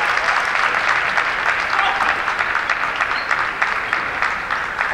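Spectators in a large hall applauding, many hands clapping in a dense patter that slowly dies away.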